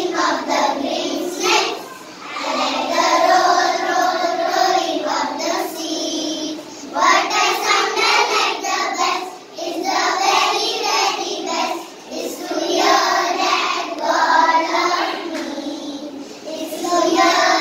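A group of preschool children singing a song together in unison, in phrases a few seconds long with short pauses between them.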